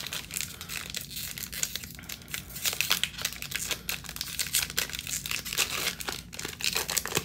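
Foil wrapper of a Panini NBA Hoops trading card pack being torn open by hand, crinkling and tearing in a dense run of crackles.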